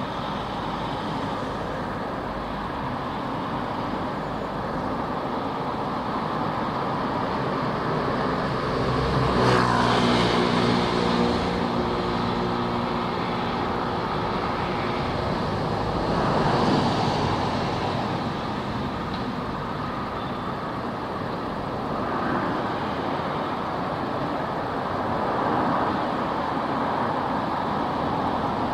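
Street traffic: a steady wash of car engines and tyres on the road. One vehicle's engine hum swells and passes about ten seconds in, and further vehicles pass more loudly around the middle and near the end.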